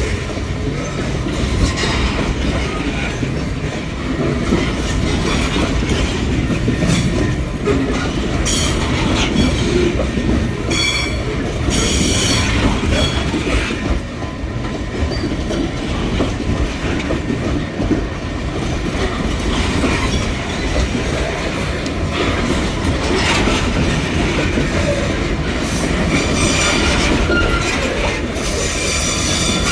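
Metre-gauge freight train rolling past: a steady heavy rumble of the wagons with clicking over the rails. Wheels squeal on the rails in short high-pitched bursts about eleven to thirteen seconds in and again near the end.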